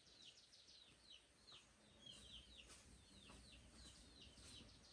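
Near silence with faint bird chirping in the background: a scattered run of short, high, falling chirps, several a second.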